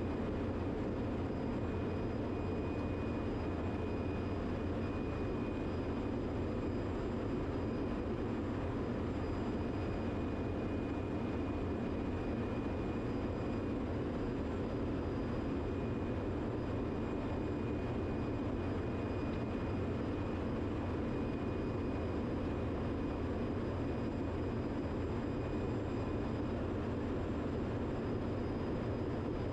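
Steady, unchanging drone of running ship's engine-room machinery, with a faint high whine held over it.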